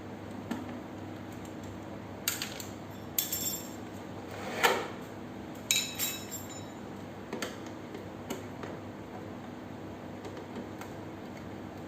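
Scattered metallic clinks and knocks of screws, tools and small bike parts being handled during unscrewing, the loudest about four and a half seconds in.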